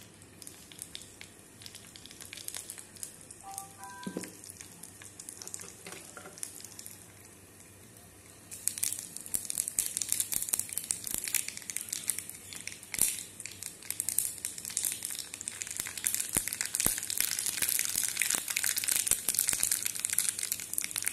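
Mustard seeds, urad dal and cumin seeds frying in hot oil in a small tempering pan on a gas burner. A faint sizzle turns, about eight seconds in, to loud, dense crackling and popping as the seeds splutter.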